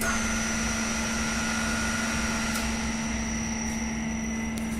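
Electric drive motor of an SDT-303 tyre changer switched on and running steadily with a thin high whine, its drive belt off so the turntable runs unloaded.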